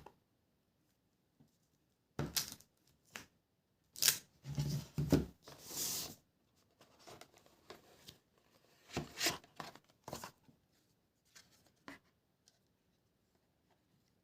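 Tablet packaging being torn open and handled: several short bursts of tearing and rustling, the longest about four to six seconds in, with quiet gaps between.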